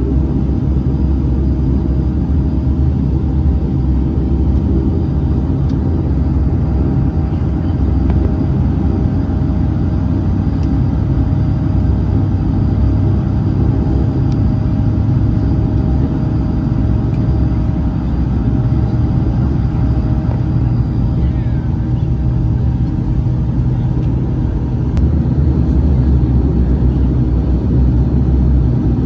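Dash 8-400 turboprop engines and propellers heard from inside the cabin while the airliner taxis: a steady low drone with a few steady higher tones, growing slightly louder near the end.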